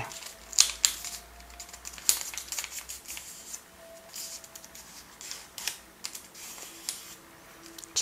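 A sheet of origami paper rustling and crinkling in the hands as the paper bird is folded over along its centre crease and pressed flat, with scattered short crackles of the paper.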